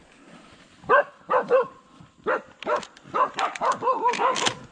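Dogs barking and yelping in short, pitch-bending calls. The first comes about a second in, and they follow one another quickly over the second half.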